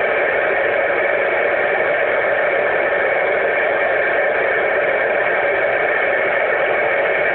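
Steady FM static hiss from a Wouxun KG-UV920R transceiver, its squelch open on the ISS channel. The hiss started abruptly the moment the station's transmission ended, so no signal is being received.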